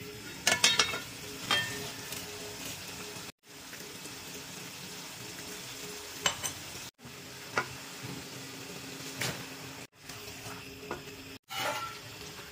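Chicken curry sizzling in an aluminium pot as it fries in the oil it has released, with sharp metal clinks of the lid being lifted about half a second in and of a spoon against the pot as it is stirred.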